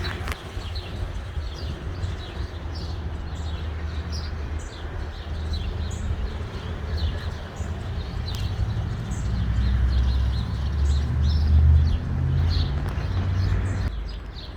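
Small birds chirping over a strong, uneven low rumble that swells loudest about ten to twelve seconds in.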